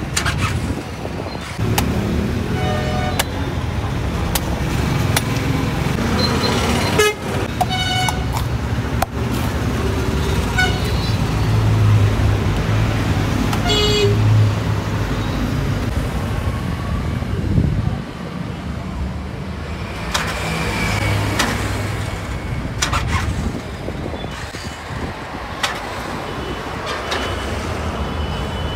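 Street traffic with engines running and vehicle horns tooting several times in short blasts. There are a few sharp knocks scattered through.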